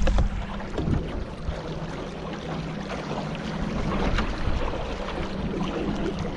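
Boat on open water with wind buffeting the microphone: a steady low hum throughout, with a couple of knocks about a second in.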